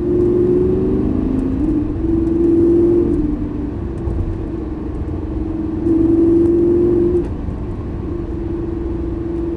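Lamborghini Gallardo V10 engine cruising, heard from inside the cabin, with a steady note that swells louder twice, about two seconds in and again about six seconds in, under light throttle.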